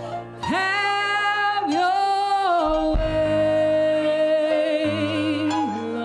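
Gospel worship music: a woman sings long held notes with vibrato over sustained keyboard chords.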